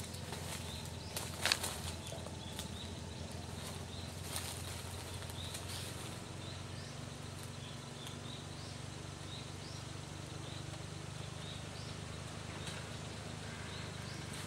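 Suzuki Jimny JA11's small turbocharged three-cylinder engine running steadily at low revs, with a few sharp clicks about a second and a half in. Faint, short high chirps recur throughout.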